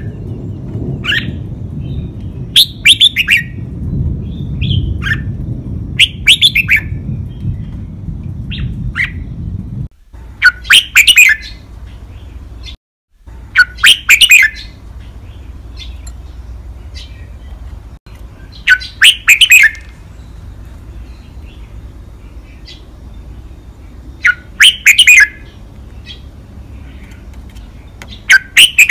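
Red-whiskered bulbul singing its loud five-syllable song: short phrases of several quick notes, repeated every few seconds.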